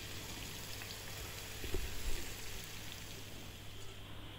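Sliced bitter gourd, onion and green chillies sizzling faintly as they fry in coconut oil in a pan, with a few soft knocks about halfway through.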